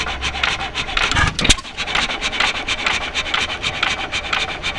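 4 hp York hit-and-miss gas engine running, its valve gear and igniter clattering in a fast, even clicking about eight times a second, with one heavier thump about a second and a half in.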